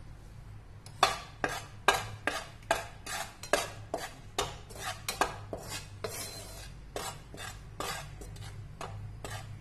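A steel spoon stirring and scraping dry wheat flour around a metal pan, knocking and scraping against the pan about two to three times a second, over a steady low hum. The flour is being roasted in ghee until it changes colour.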